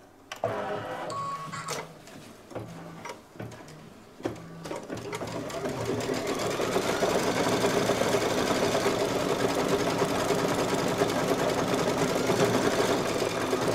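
Brother Luminaire single-needle embroidery machine starting up with a few short mechanical sounds, then from about five seconds in running steadily as it stitches a fill.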